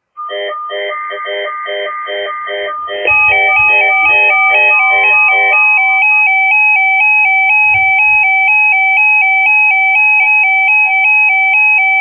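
Electronic emergency-alert attention tones on a broadcast. A quick run of pitched beeps lasts about three seconds, then a louder warbling tone alternates high and low about twice a second.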